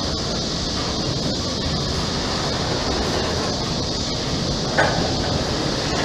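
Covered hopper cars of a long freight train rolling past: a steady rumble and hiss of steel wheels on the rails, with one brief sharp knock about five seconds in.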